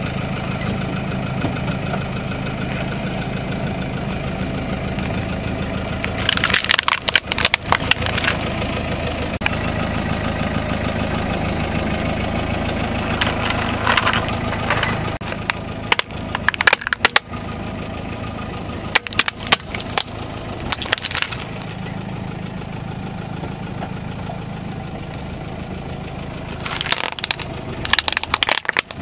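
A car's engine idling steadily while its tyre rolls over and crushes objects, with several short bursts of crunching and cracking over the engine's hum.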